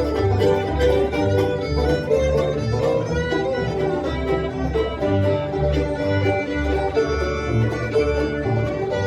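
Bluegrass band playing a tune: fiddle, banjo, mandolin, guitar and bass together, with the bass walking at about two notes a second under sustained fiddle lines.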